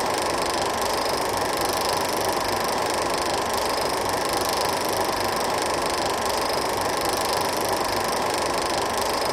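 16mm film projector running: a steady, unchanging mechanical noise.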